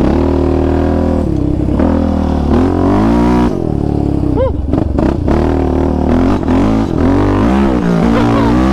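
Yamaha Raptor 700 sport quad's single-cylinder four-stroke engine running under load while being ridden, its pitch rising and falling repeatedly as the throttle is worked.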